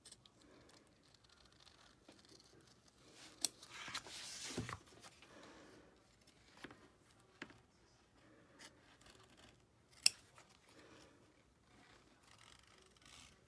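Faint snipping of paddle-bladed applique scissors trimming fabric close to the tack-down stitches in an embroidery hoop. Scattered small cuts and clicks, with a longer cut about four seconds in and a sharp click about ten seconds in.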